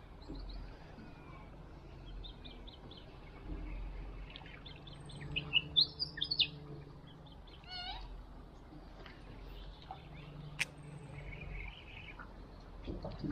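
Birds chirping and calling in the riverside trees, with a louder burst of calls about five to six seconds in and a quick rattling series soon after. A single sharp click comes near the end.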